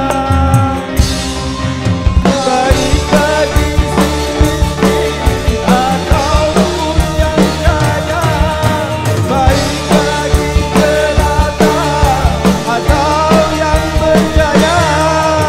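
Live dangdut band music: an electronic keyboard melody over a drum kit and bass guitar, with a male voice singing.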